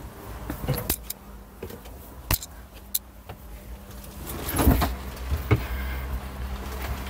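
Knocks, clunks and scuffs of someone climbing the steps into a tractor cab and settling into the seat, with the loudest thumps about four and a half seconds in as they sit down. A steady low hum runs underneath.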